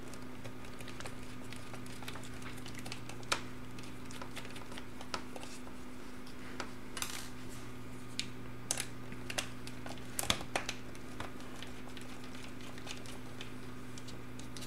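Scattered light clicks and taps as a screwdriver backs out the small screws that hold the LCD hinges and the plastic case of a Dell Latitude D420 laptop is handled, over a steady low hum. The taps come thickest in the middle of the stretch.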